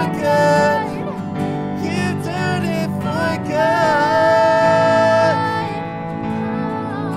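A woman and a man singing a worship song over strummed acoustic guitar and a Yamaha MX88 keyboard, holding a long note in two-part harmony a little past halfway, the music then softening near the end.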